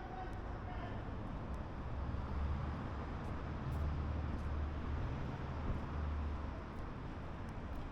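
City street traffic: a low vehicle engine rumble that swells a couple of seconds in and eases off toward the end, over steady traffic noise.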